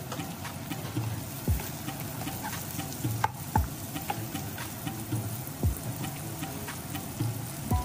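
Sliced onions sizzling in hot oil in a non-stick wok, stirred with a spatula that ticks and scrapes against the pan. A low falling beat from background music comes about every two seconds.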